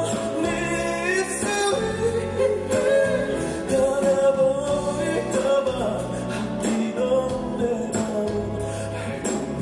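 A male vocalist sings live into a handheld microphone over a band accompaniment, bending and holding sung notes.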